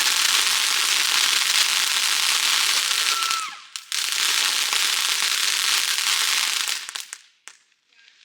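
A lit consumer firework sprays a dense, steady crackling hiss. It drops out briefly about three and a half seconds in, resumes, and dies away about seven seconds in.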